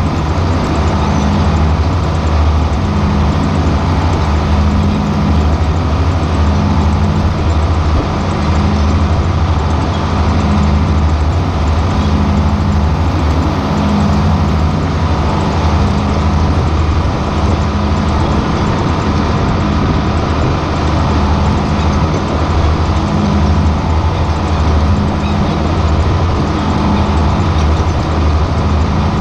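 John Deere 4440 tractor's six-cylinder turbo diesel running steadily under load while it pulls a corn planter through the field, a deep steady hum with a lower tone that swells about every two seconds, over the rush of machinery noise.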